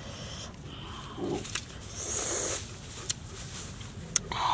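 Close-up chewing of crisp star gooseberries: a few short wet crunching bursts and sharp mouth clicks.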